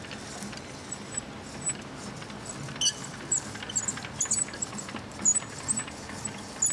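Clausing Colchester Master 2500 engine lathe carriage traversing the bed: a string of irregular light metallic clicks and ticks over a steady low hum, the clicks thickening from about halfway through.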